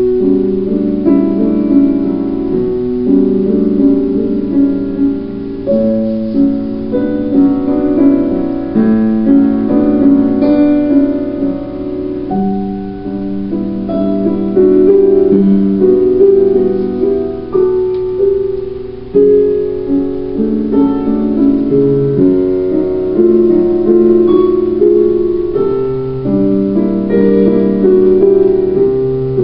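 Piano music: a continuous melodic piano piece, one note or chord after another.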